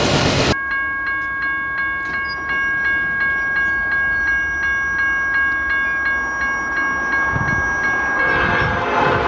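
A railroad bell rings steadily, struck about every 0.6 s. Near the end the rumble of an approaching train builds under it. The clip opens with half a second of loud noise that cuts off abruptly.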